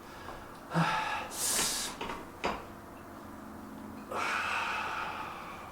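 A person breathing hard after a set of heavy dumbbell presses, with two loud exhales about a second in and again near four seconds in, and a single knock between them.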